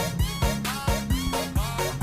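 Upbeat background music with a steady, quick beat and a bass line.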